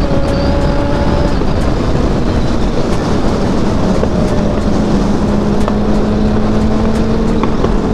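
Yamaha R6's inline-four engine cruising at a steady pitch, heard from the rider's seat over rushing wind noise on the microphone.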